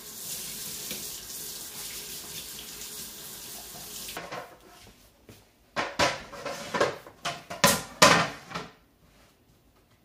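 Water running from a kitchen tap into a sink, shut off about four seconds in. This is followed by a quick run of sharp clattering knocks as kitchenware is handled and set down.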